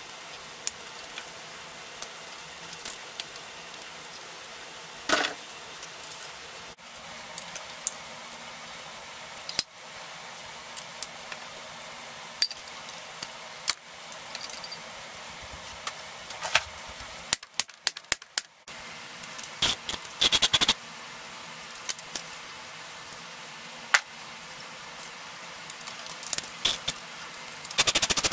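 Scattered clicks, taps and metallic clinks of hand tools against bicycle parts during disassembly, over a steady low hiss. Right at the end a socket ratchet starts clicking rapidly.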